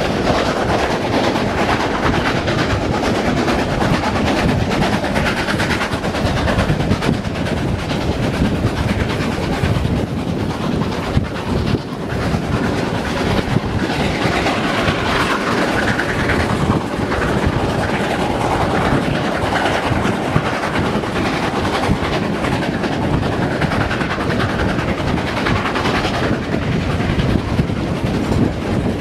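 Two GWR Castle class 4-6-0 steam locomotives double-heading a train and working hard up a steep gradient, heard from an open carriage window: their exhaust over the clatter of the coach wheels on the rails.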